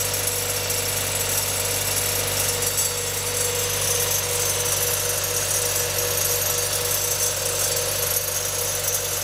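Mazda Roadster NB6C (1.6-litre four-cylinder) running at a steady speed, with a steady abnormal noise from its engine accessories (補器) mixed into the engine sound.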